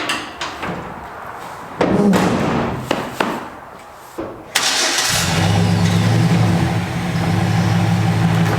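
A few knocks and handling sounds, then an engine starts about four and a half seconds in and settles straight into a steady run.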